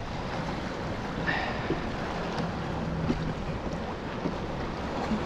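Steady wind noise on the microphone over water lapping around a kayak on open water.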